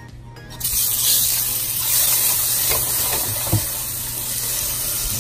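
A scoop of margarine sizzling as it hits a hot pan, starting suddenly about half a second in and going on as a loud, steady hiss, with a single knock about three and a half seconds in.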